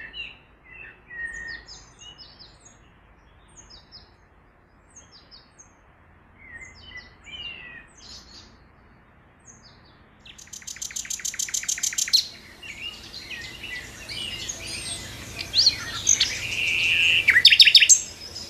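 Birdsong: scattered short chirps and whistles at first, then from about ten seconds in a louder song that opens with a fast, rattling run of repeated notes and goes on in varied whistled phrases.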